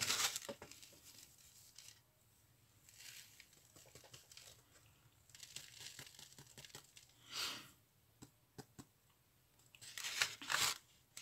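Paper and card being handled: quiet intermittent rustling and crinkling, with short louder rustles at the start, about seven seconds in, and near the end.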